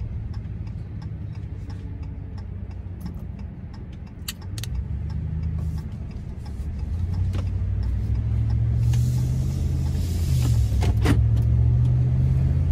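Ram pickup truck's engine and tyre noise heard from inside the cab, pulling away and accelerating: the engine drone grows steadily louder about four seconds in. Two light clicks come just before it builds, and the engine pitch dips briefly and picks up again near the end.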